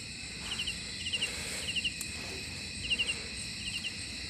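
Insects chirping: short runs of three or four quick high chirps repeat every second or so over a steady high-pitched insect drone.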